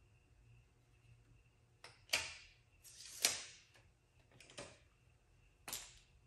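Steel tape measure being pulled out and let run back in, about six short zipping sounds over the last four seconds, each starting sharply and fading within half a second.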